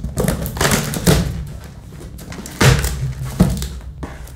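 Cardboard shipping box being opened by hand: several bursts of scraping and rustling cardboard as the taped top flaps are pulled apart, with a few dull thuds.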